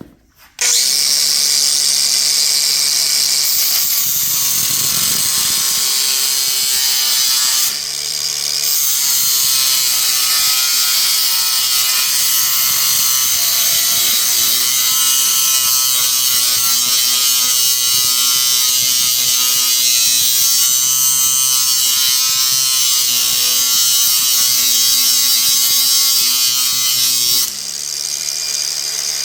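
Angle grinder with a cut-off (zip) wheel grinding and cutting a small metal part: a loud, steady high-pitched grind over the motor's hum, its pitch wavering under load. It eases off briefly about eight seconds in, and near the end the wheel lifts off the work with the motor still spinning.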